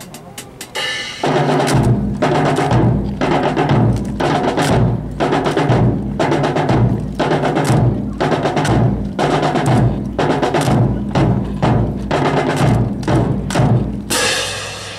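Percussion-led drill music with a steady beat of about two strong strokes a second over changing low notes. It starts about a second in and stops shortly before the end.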